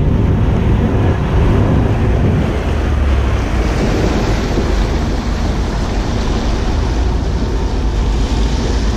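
Sea water rushing and splashing along the hull of a moving boat, with wind buffeting the microphone and a steady low rumble underneath.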